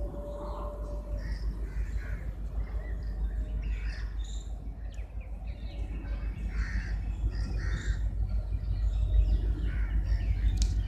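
Crows cawing many times over a steady low rumble that grows slightly louder toward the end.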